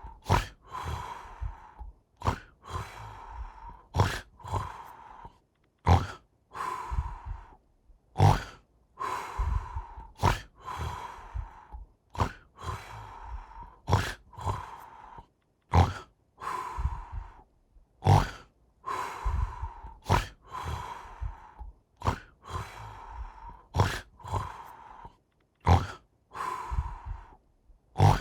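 Snoring: a sharp snort about every two seconds, each followed by a longer, breathy rasp, in an even rhythm.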